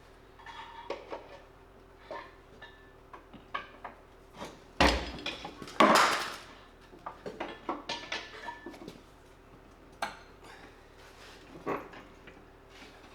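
Metal clinking and rattling from an engine hoist and the engine and transmission hanging from it, with two loud clanks about five and six seconds in.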